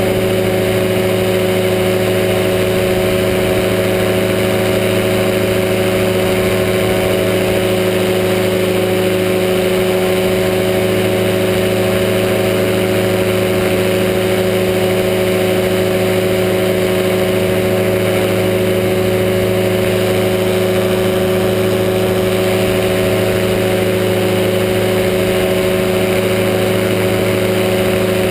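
A powered parachute's engine and propeller drone steadily in flight at a constant throttle, one unchanging pitch with no revving up or down.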